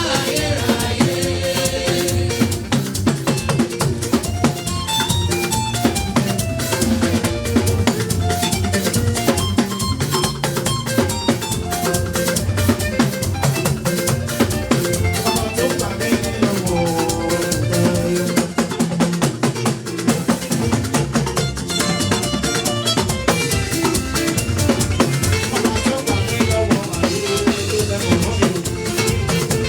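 Live church band music: a drum kit with snare and bass drum keeps a steady beat under a moving melody.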